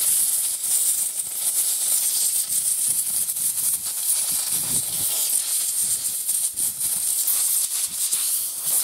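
Compressed-air blow gun hissing in a steady blast as it blows dust off a plastic chainsaw part; the air cuts off abruptly near the end.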